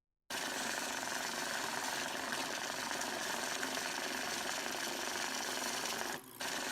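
Electric banknote counting machine running, rapidly riffling bills through in a steady, dense whir that starts abruptly and pauses briefly about six seconds in.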